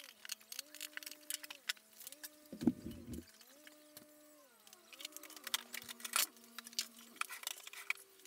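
Soft background music, a simple melody of held notes stepping up and down. Under it come scattered light clicks and knocks from screwing and handling the chipboard drawer parts, with one louder knock about three seconds in.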